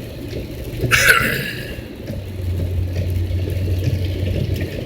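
An engine running steadily with a low drone, with a brief hiss about a second in.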